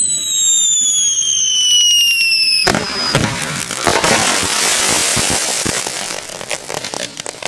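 Fireworks packed inside a plastic snowman going off: high whistling tones falling slowly in pitch, then a sudden loud blast nearly three seconds in as the snowman bursts, followed by dense crackling that thins into scattered pops near the end.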